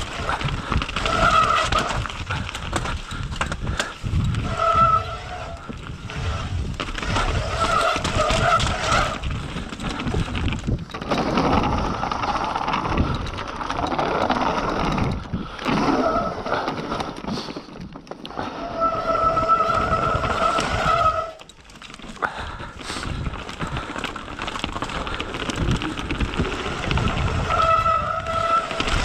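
Mountain bike descending a rough trail: tyres rolling and knocking over rocks, roots and the slats of a wooden boardwalk, with the bike rattling and wind on the helmet camera's microphone. A high buzz comes and goes in several short spells, and the noise dips briefly about three quarters of the way through.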